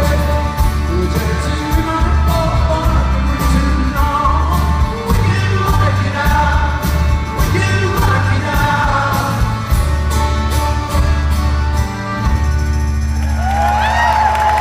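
A live rock band plays with a sung lead vocal, drums and bass, heard from the audience in a large hall. Near the end the audience starts whistling and cheering as the song winds down.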